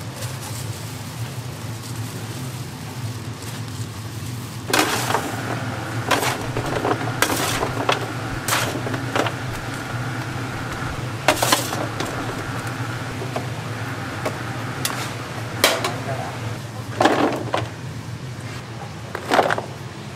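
Metal utensils clanking against stainless-steel food trays, a string of irregular sharp clanks starting about five seconds in, over a steady low hum and background voices.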